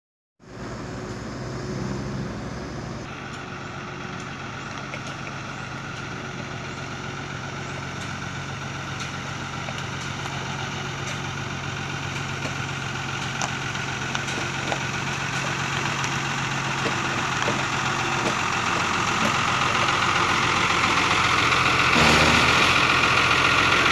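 Old Isuzu truck's engine running as it drives slowly closer, growing steadily louder. There is a short burst of noise about 22 seconds in, as the truck draws up alongside.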